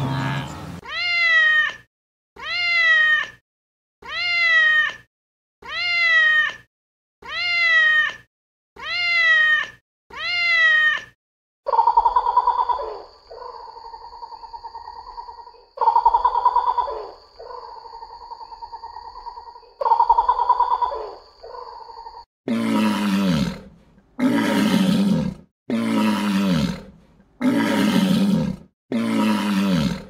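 A cat meowing seven times in a row, evenly spaced, each meow about a second long and falling in pitch. Then come three longer calls of another animal over a steady high tone, and from about two-thirds of the way in a run of rough, low animal calls, about one a second.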